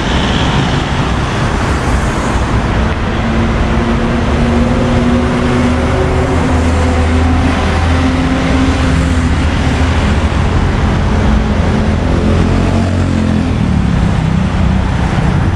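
City road traffic running steadily, with the steady hum of a vehicle engine close by for several seconds in the middle.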